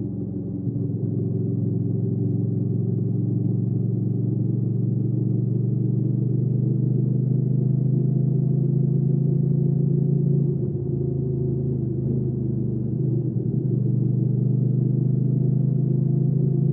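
Hyosung GV300S Aquila 300 V-twin motorcycle engine running steadily under way. About ten seconds in the engine note dips and wavers for roughly two seconds, then settles back to a steady pitch.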